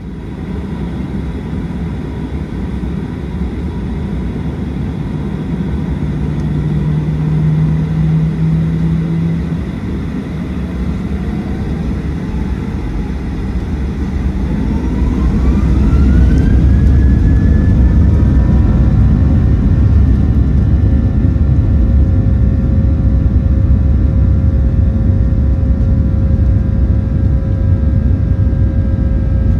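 Boeing 737-800's CFM56-7B jet engines heard from inside the cabin, spooling up to takeoff thrust. A whine rises steeply in pitch over a few seconds and then holds steady, over a loud, even rumble that grows louder as it settles. A brief low hum sounds for about three seconds before the spool-up.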